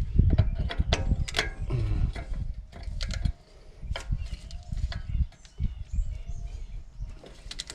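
Metal clinks and knocks of a large spindle nut socket being fitted onto the inner wheel-bearing nut on a front spindle, with handling rumble in the first few seconds and scattered sharper clicks after.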